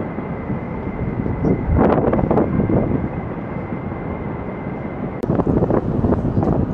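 Wind buffeting the microphone, a dense rumbling rush that swells around two seconds in and again near the end.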